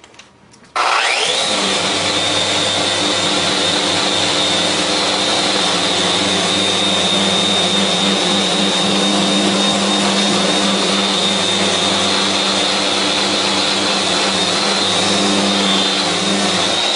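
Festool Rotex RO 125 dual-action sander switched on about a second in, its motor whine rising quickly and then running steadily as it sands hardwood in disc (Rotex) mode with 120-grit paper on the hard pad. The whine begins to fall right at the end as the sander is switched off.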